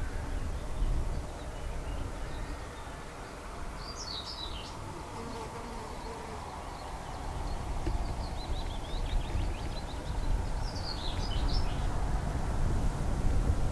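Small birds singing a few short high phrases, about four seconds in and again near the end, over a low, uneven wind rumble on the microphone.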